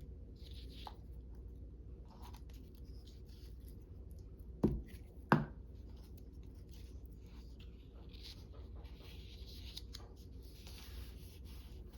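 Craft materials being handled on a tabletop: faint rustling and scratching of paper, with two sharp knocks about half a second apart near the middle.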